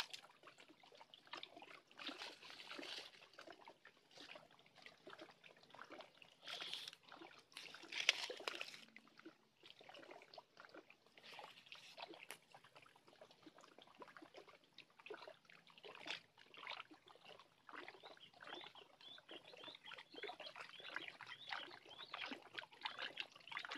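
Faint water lapping and trickling against the rocks at the water's edge, with irregular small splashes.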